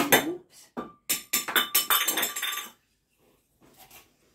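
Glass blender jar clinking and knocking as it is handled: a sharp knock at the start, then a quick run of clinks from about a second in until nearly three seconds, with a faint ringing tone under them.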